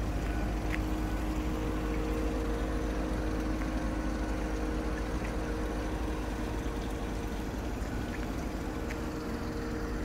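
Steady low rumble with a constant mechanical hum.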